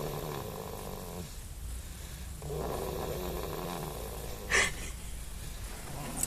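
Baby snoring: two long snores of about two seconds each with a pause between them. They are followed, about four and a half seconds in, by a short sharp noise, the loudest moment.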